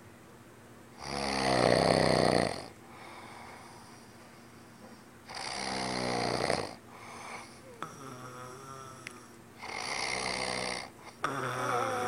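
A sleeping man snoring: three long, rough snores about four seconds apart, with quieter breathing between them.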